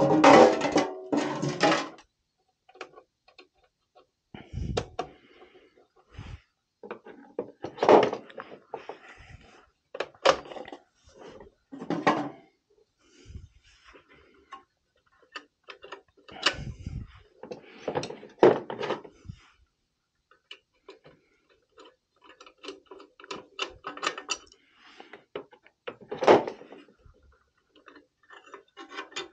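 Hand tools working on a Riello oil burner's metal housing and fittings: irregular clicks, knocks and scrapes, a few at a time, with a louder rattle in the first two seconds. The burner is not running.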